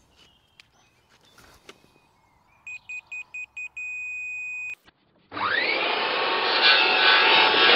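A laser level detector gives a few short high beeps and then a steady tone about a second long, the tone signalling that it sits on the level laser line. Then a Makita circular saw spins up with a rising whine and runs cutting through an oak post.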